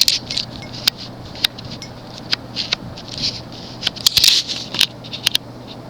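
Metal ball pull chain and its fob on an Emerson Petal ceiling fan clinking and rattling as they are handled, with irregular sharp clicks. A low steady hum from the running fan lies under it.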